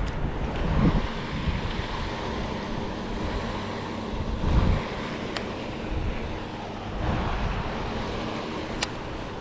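Wind buffeting the microphone, an uneven low rumble that swells about a second in and again near the middle, with two short sharp clicks in the second half.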